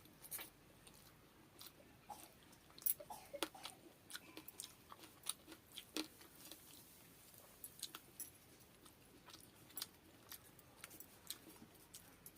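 Close-miked eating of pakhala (fermented water rice) with fried fish: chewing and biting with irregular sharp clicks and small crunches, the loudest about three seconds in and again at six seconds.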